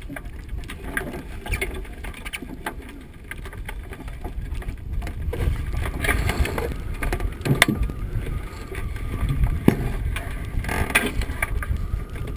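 Iceboat underway on lake ice: a low rumble, from the runners on the ice and wind on the mast-mounted camera, grows louder a few seconds in. Occasional sharp knocks and rattles cut through it.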